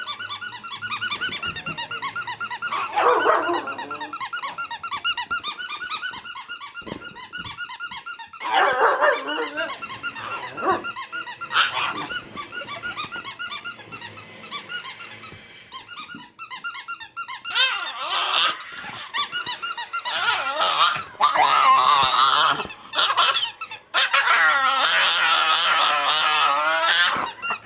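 A squeaky toy squeaking rapidly and continuously, set off by a staffy puppy's weird, wavering vocal sounds in bursts. The puppy's sounds come loudest and longest in the last third.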